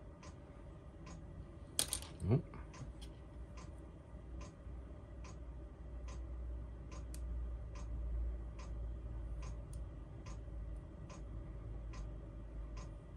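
Steady ticking, a little over one tick a second. About two seconds in there is a brief louder noise that falls in pitch.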